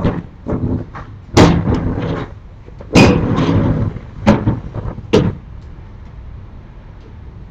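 Sliding wooden storm shutters (amado) being run shut along their tracks and banging into place: a run of loud knocks and rattles, the four biggest about a second or so apart in the first five seconds, then quieter.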